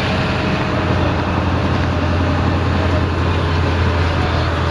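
Steady low engine hum under a constant rushing noise, with no change in level.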